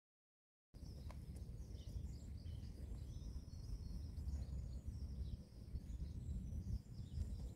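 After a brief silence, wind rumbling on the microphone, with small birds chirping and singing.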